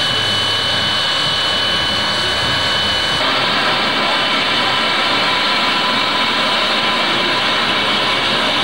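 SNCF 141R steam locomotive hissing steadily with escaping steam, a thin high tone over the hiss stopping about three seconds in.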